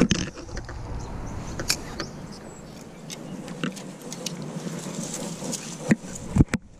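Close handling noise: a jacket rubbing and a spinning rod and reel being handled, with scattered sharp clicks, then a few heavy knocks about six seconds in.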